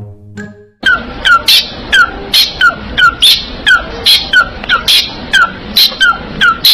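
A parrot making short, sharp calls over and over, about two to three a second, each one dropping in pitch. The calls begin abruptly about a second in.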